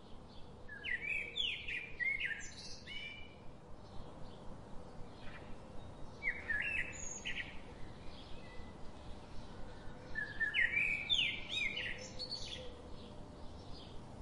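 Birds chirping and singing in three short bouts of quick up-and-down chirps, about a second in, around six seconds and around ten seconds. A faint steady hum runs beneath.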